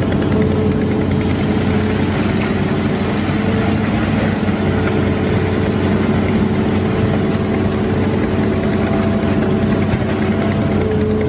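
Excavator's engine running steadily at a constant pitch while it works the bucket.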